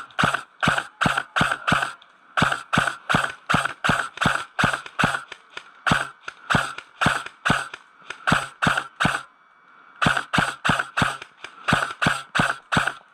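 Airsoft gun firing rapid single shots, about three a second, each a sharp mechanical crack. The string breaks off briefly about two seconds in and again for about a second near the end.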